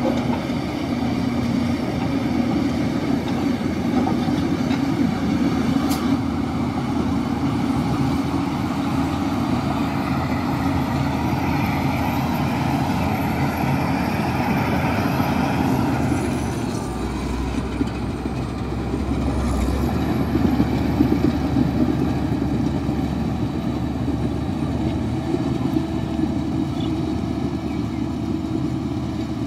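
Heavy diesel earthmoving machinery running steadily under load, with a deeper rumble for a few seconds past the middle.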